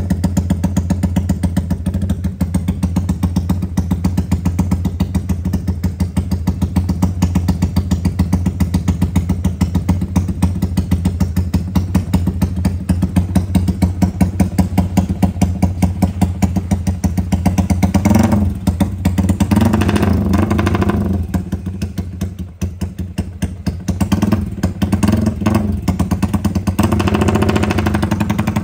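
Modified Yamaha Y15ZR single-cylinder fuel-injected motorcycle engine (65 mm big-bore build) idling with a lumpy, pulsing "bobok-bobok" beat likened to a helicopter, with throttle blips about two-thirds in and again near the end. The uneven idle is taken as normal for an engine not yet dyno-tuned, with the throttle position sensor not yet set.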